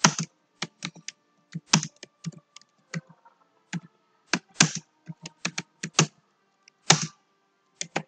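Computer keyboard being typed on: slow, uneven keystrokes, single clicks with short pauses between words.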